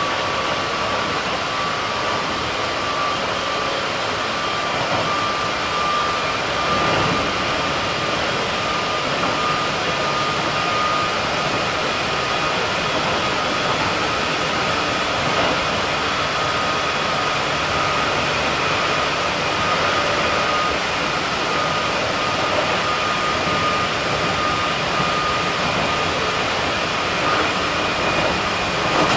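Keikyu 1700 series electric train running at speed, heard from inside the car: a steady rumble of wheels on track with a high whine that rises slightly in pitch over the first ten seconds or so and then holds steady.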